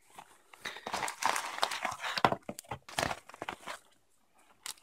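Plastic mailing bag rustling and crinkling as a boxed item is pulled out and handled, with small clicks of the packaging; it stops shortly before the end.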